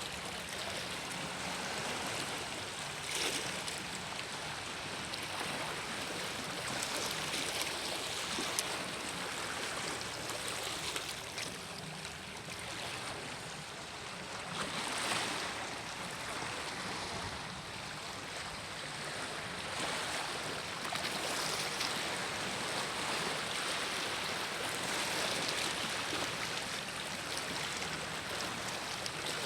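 Sea waves washing up on a beach: a steady rush of surf that swells every few seconds as each wave comes in.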